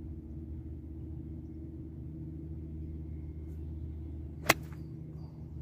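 Golf iron striking a ball off fairway turf: one sharp, short crack about four and a half seconds in, over a steady low hum.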